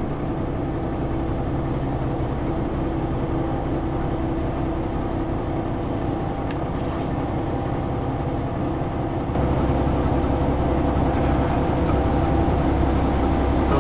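Steady drone of a JR Shikoku 2000 series diesel railcar's engines heard inside the passenger car; about nine seconds in, a deeper, louder engine rumble sets in.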